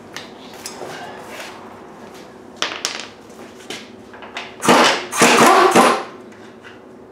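Steel hand tools clanking on the tractor's steering linkage: a couple of sharp clicks about two and a half seconds in, then a louder stretch of metal clattering about a second long near the end.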